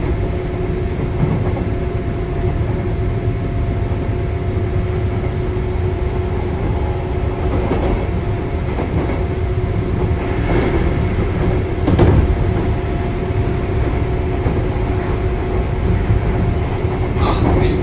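Sotetsu 9000 series electric train running between stations, heard from inside the car: a steady rumble of wheels on rail with a steady hum under it. A single sharp knock about twelve seconds in.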